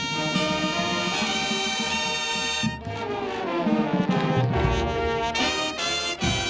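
College marching band's brass section playing sustained chords, with a brief break about three seconds in and bass drum strokes in the second half.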